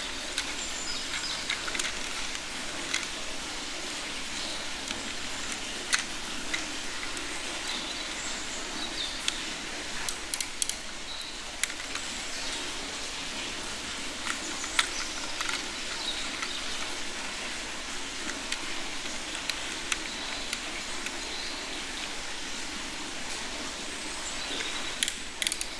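Scattered sharp clicks and taps of hard plastic toy parts being handled, and a toy screwdriver fitting the wheel screws of a plastic toy cement mixer truck, over a steady background hiss.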